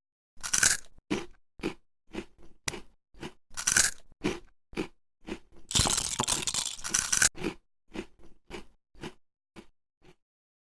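Crunchy chewing: a run of crisp bites and crunches, about two a second, with a louder stretch of dense crunching in the middle, then tapering off and stopping near the end.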